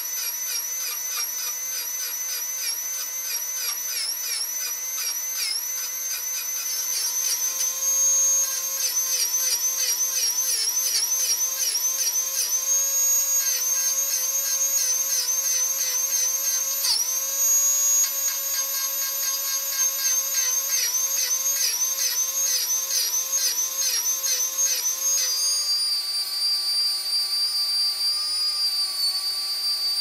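Vacuum-driven air-turbine rotary tool whining at high pitch as its carbide burr grinds a stainless steel bar. The pitch dips again and again as the burr bites under load. Shortly before the end the whine changes to a steadier, lower pitch.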